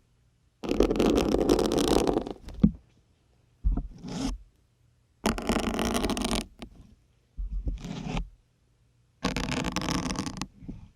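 Syringe needles being pushed into a dense grey sponge, each push a scratchy, squeaky crunching scrape. There are about five strokes, one after another, with silent gaps between them.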